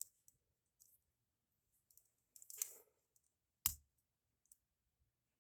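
Faint metallic clicks and a brief scrape of a lock pick and tension wrench working inside a Master Lock padlock, with one sharper click about three and a half seconds in.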